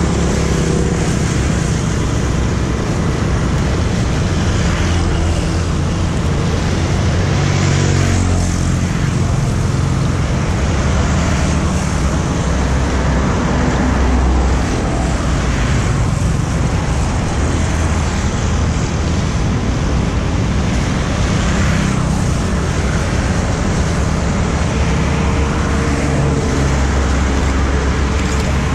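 Road traffic: motorbikes and cars passing on a wet road, a steady rumble with tyre hiss. About eight seconds in, a passing engine's pitch drops as it goes by.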